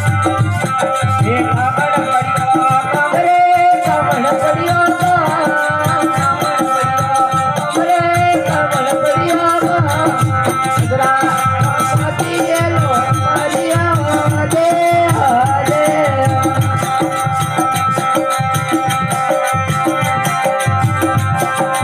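Rajasthani desi veena bhajan music: a wavering melody over steady held tones, with a regular drum beat throughout.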